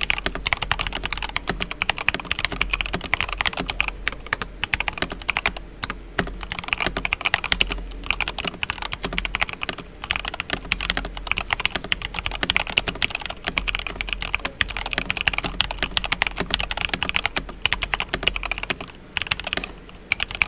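Mechanical keyboard typing on a Varmilo Koi with stock Tealios V2 linear switches: fast, continuous key clacks with a few brief pauses.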